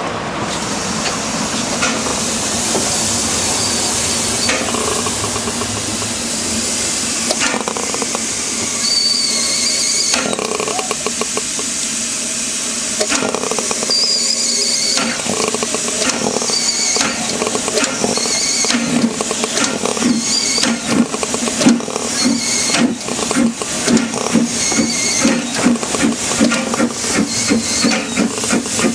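Narrow-gauge steam locomotive 101 working along the line: a steady rush of steam and running noise, then from about halfway an even beat of exhaust chuffs, about two to three a second. A high wavering squeal comes and goes.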